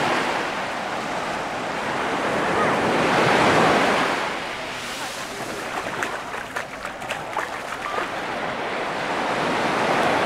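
Sea waves breaking and washing up a sandy beach: the surf swells to a peak a few seconds in, eases off, then builds again with another wave near the end.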